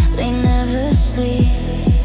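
Deep house music: a four-on-the-floor kick drum about twice a second under sustained synth chords, with a synth melody gliding upward in the first second.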